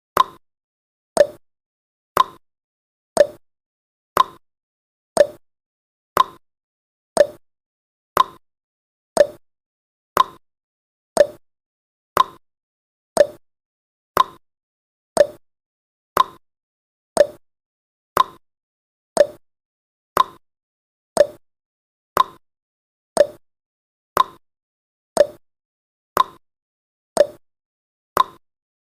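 Countdown timer sound effect: a short tick once every second, each dying away quickly.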